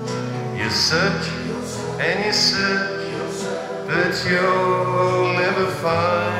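Live rock band playing, with a man singing phrases over guitar and a sustained instrumental backing.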